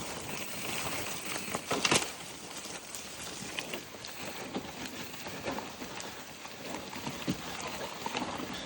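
Mountain bike being ridden over a rough trail: tyres crunching and the bike rattling over bumps, with a sharper knock about two seconds in.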